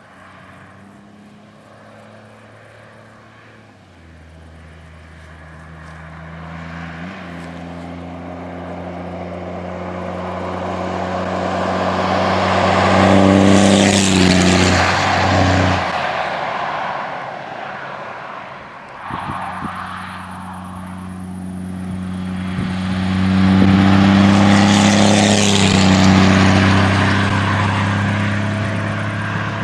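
The 5.9-litre 24-valve Cummins inline-six turbodiesel of a 2000 Dodge Ram 2500 driving past. Its engine sound builds to a loud peak about halfway through, drops away suddenly, then builds to a second loud peak near the end and fades.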